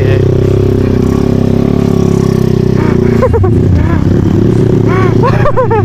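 Honda Tiger motorcycle's single-cylinder four-stroke engine running steadily under the rider, with no large revs or gear changes.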